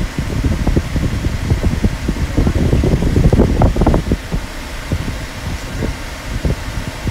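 Rumbling road and wind noise inside a moving car's cabin, a steady low rush that fluctuates and eases a little about four seconds in.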